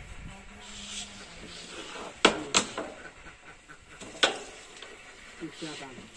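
Carrom striker flicked across the board, giving sharp clacks as it strikes the coins and rebounds: two clacks in quick succession about two seconds in, and one more a couple of seconds later.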